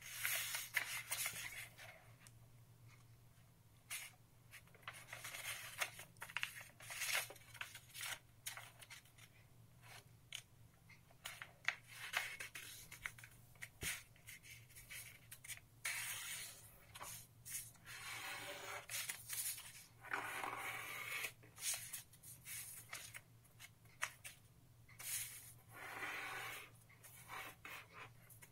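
A sheet of colour paper being folded by hand into a triangle: irregular rustling and crinkling as it is handled, with short scrapes as the folds are pressed flat against a wooden tabletop.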